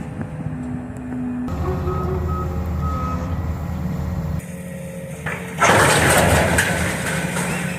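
Excavator's diesel engine running, with a backup alarm beeping a few times; about six seconds in, a loud, long crunching and crashing of demolition debris as the gym structure is torn down takes over.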